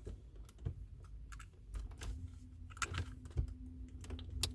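Scattered small plastic clicks and taps as a cable tie is worked into place around an automatic gear knob. A faint steady hum comes in about halfway through.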